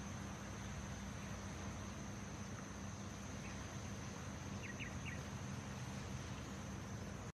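Quiet outdoor ambience: a steady hiss with a low hum and a constant thin high tone like insects droning, with three quick high chirps about five seconds in. The sound cuts off abruptly just before the end.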